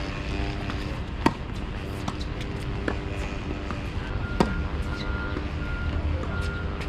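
Tennis ball struck by a racket with a sharp pop, twice, about a second in and again about four and a half seconds in, with smaller ball bounces and footstep clicks between. A steady traffic background with a repeating high beep starting about four seconds in.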